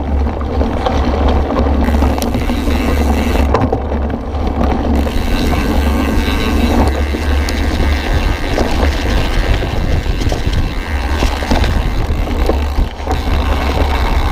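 Mountain bike ridden fast down a dirt woodland trail, heard from a camera on the bike. A steady, heavy wind rumble on the microphone runs under the tyres' noise over the ground, with frequent small rattles and knocks from the bike.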